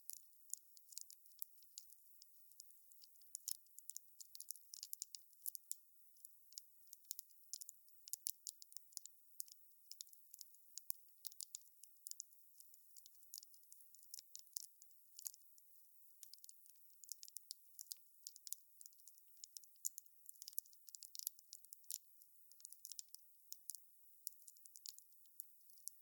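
Wood fire crackling: faint, thin, sharp pops and snaps, several a second at irregular intervals, with almost no low rumble beneath.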